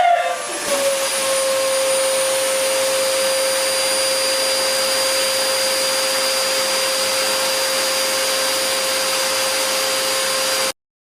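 A steady whine and rush of air from a small electric motor, like a running household appliance, holding level, then cutting off suddenly near the end.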